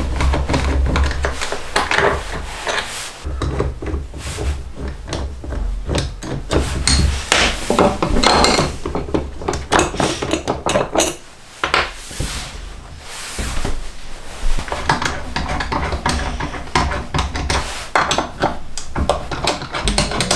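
Wooden vise parts being handled: the thin stacked wooden pieces of a fractal vise jaw clack and slide against each other, with frequent short knocks of wood on wood as the jaw is worked.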